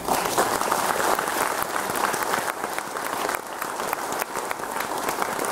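Audience applauding, breaking out all at once and going on steadily.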